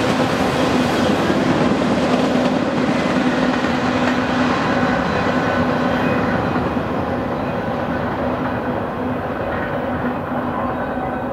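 Auto-rack freight cars rolling by on steel rails, a steady rumble of wheels on track. The sound fades and dulls from about the middle on as the end of the train passes and draws away.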